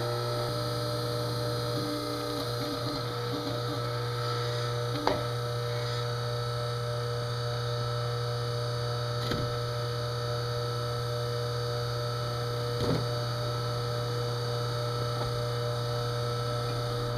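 Steady low hum, with a few faint brief knocks about five, nine and thirteen seconds in.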